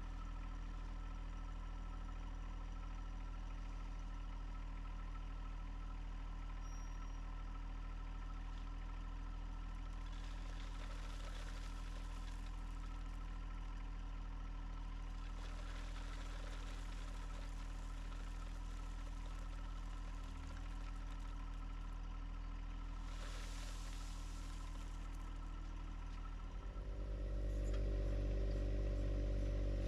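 John Deere 1025R compact tractor's three-cylinder diesel engine running steadily at idle. It becomes noticeably louder near the end.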